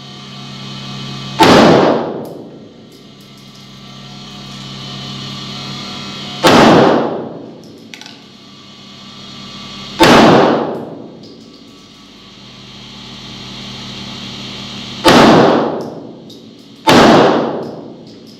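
9mm pistol fired five times in single shots a few seconds apart, the last two closer together, each shot very loud with a brief ringing tail.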